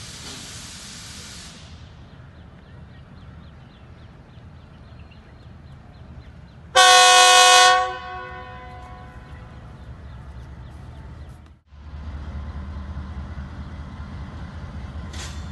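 Pakistan Railways diesel-electric locomotive 4568 sounding its departure horn: one loud blast of about a second, several tones together. A burst of air hiss comes at the start, and after a brief break the locomotive's low engine rumble grows as the train pulls out.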